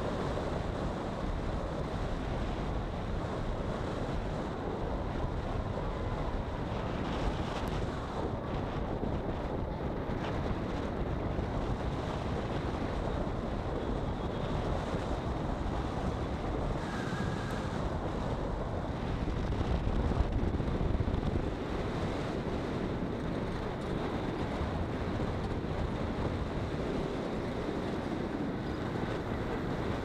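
Wind rushing over the microphone of a camera mounted outside a moving car, mixed with steady road and tyre noise from driving on broken asphalt; briefly louder about two-thirds of the way through.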